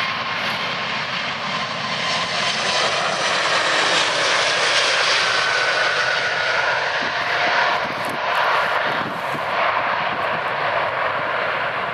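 Jet airliner's engines: a loud, steady rush of engine noise with a faint whine in it, swelling a little midway.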